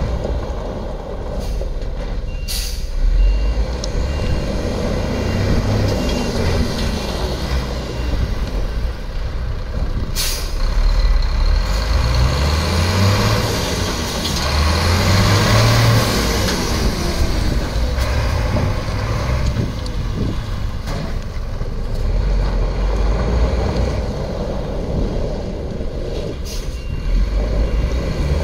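2008 Iveco Trakker 410 8x4 truck's diesel engine running as the truck manoeuvres, revving up several times in the middle. A reversing alarm beeps steadily during the first several seconds and again near the end, and short air-brake hisses come a few times.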